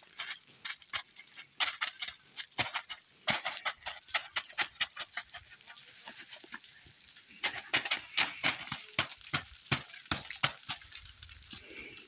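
Boots crunching and scraping on packed snow and ice, with irregular crackling steps, several a second, in two busy stretches.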